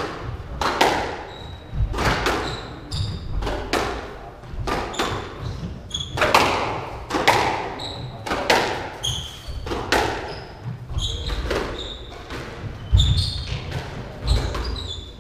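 Squash rally: the ball smacking off racquets and the court walls about once a second, each hit ringing briefly in the court, with short high squeaks of shoes on the wooden floor between hits.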